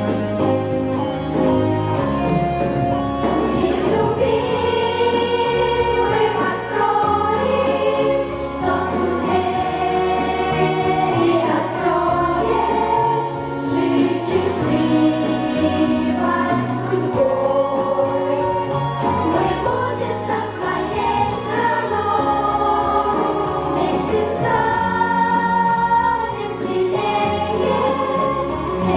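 Vocal pop ensemble singing in chorus over instrumental backing.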